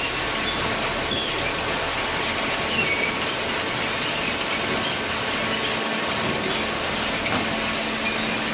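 A cardboard baler and its slatted chain feed conveyor running, a steady loud mechanical noise as loose cardboard rides up into the machine, with a few faint short squeaks.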